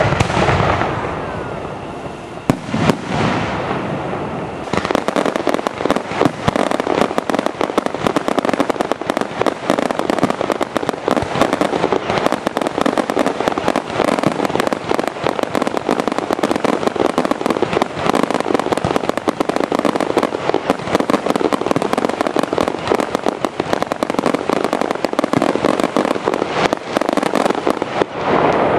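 Aerial fireworks shells bursting close overhead. A few separate loud bangs come in the first few seconds, then from about five seconds in a dense, continuous barrage of rapid bangs and crackle that runs until just before the end.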